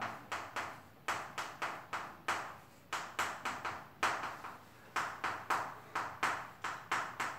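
Chalk writing on a blackboard: a quick, uneven run of sharp taps, about three a second.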